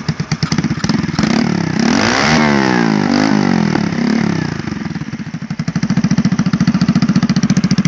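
Hand-built four-stroke chainsaw's single-cylinder engine, fitted with a larger carburetor and intake, idling and then revved quickly up and down twice on the throttle. It then settles back to a steady idle.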